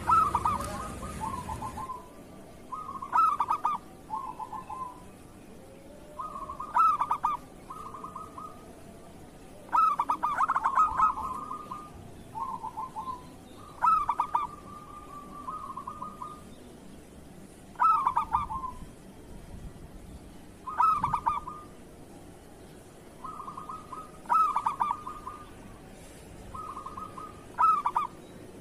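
Zebra dove cooing: a short, stuttering, rolling coo phrase repeated about every three to four seconds, about nine times.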